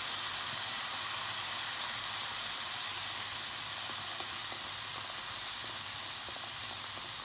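Hot frying pan of onions and stock sizzling with a steady hiss that slowly fades, as brown ale is poured in and foams.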